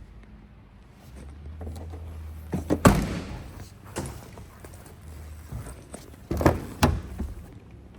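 Car door shut with a thud, twice: once about three seconds in and again about six and a half seconds in, each with smaller knocks around it.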